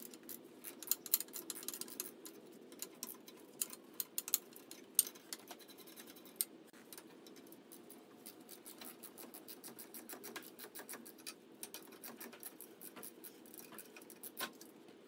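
9/16 socket ratchet clicking in quick runs with short pauses as it loosens the exhaust manifold nuts on a Jeep's 2.5L four-cylinder, over a faint steady hum.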